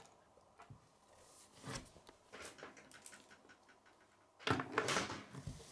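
Faint, scattered clicks and rustles of handling, with a louder rustling burst about four and a half seconds in.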